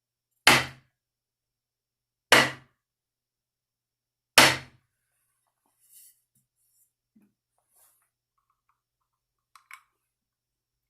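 Three loud hammer blows driving nails, about two seconds apart, each ringing out briefly; a few faint small knocks follow.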